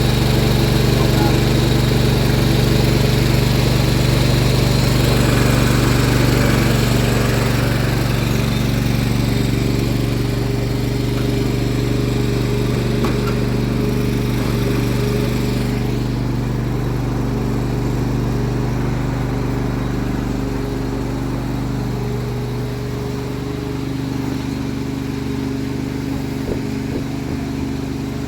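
An engine idling steadily, its tone shifting slightly near the end.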